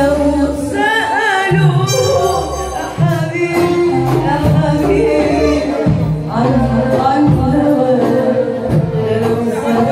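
A woman singing an Arabic song live into a handheld microphone over amplified instrumental accompaniment, with a bass line and a steady percussion beat. She holds some notes with vibrato.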